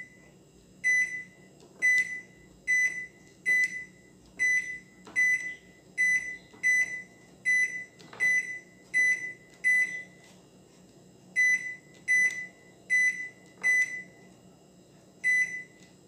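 Electrolux MTD30 microwave oven's control panel beeping once for each key pressed: a series of short, identical high beeps, roughly one a second with a couple of short pauses, with a faint click of the key at each. Each beep shows the key registering on the newly fitted membrane keypad under test.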